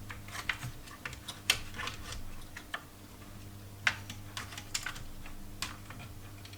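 Irregular light clicks and taps of a screwdriver and small metal parts as a graphics card's retaining screw is undone inside a small PC case, over a faint steady low hum.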